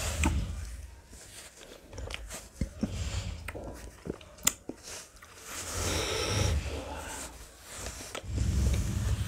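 A person eating ice cream close to the microphone: biting, crunching and chewing, with scattered sharp clicks and a longer noisy stretch about six seconds in.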